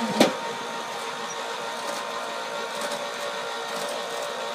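Electric 110-volt HVAC lift running steadily as it raises its load, a constant motor hum, with one sharp clack about a quarter second in.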